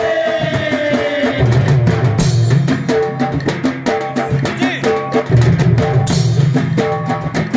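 Kirtan music: hand drums keep up a running rhythm under clashing brass hand cymbals, with two big cymbal clashes, about two seconds in and about six seconds in. A long held note slides slightly downward over the first second and a half.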